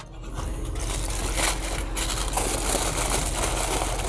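Aluminium foil crinkling as it is opened around rested steaks, with irregular crackles over a steady low background rumble.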